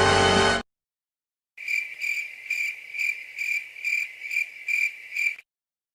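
Cricket chirping in an even rhythm, about two and a half chirps a second, starting about a second and a half in after a cut to dead silence. It is the awkward-silence meme sound effect.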